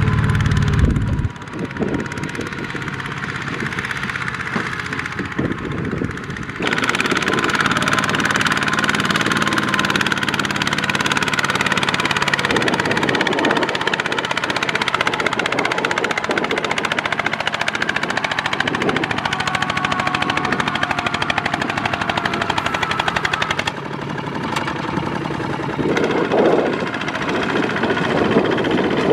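Single-cylinder diesel engine of a Kubota two-wheel walking tractor, running steadily with a fast, even chug as it pulls a loaded trailer through mud. At the very start a heavier four-wheel tractor engine rumbles for about a second before a cut.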